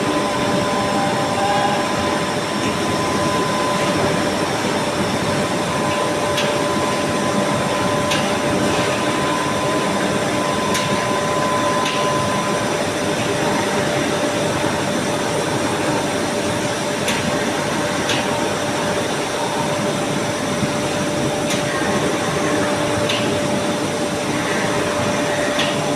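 Steady, loud industrial machinery noise at an induction furnace with a hydraulic scrap poker working, carrying a constant hum tone and a few faint sharp clicks.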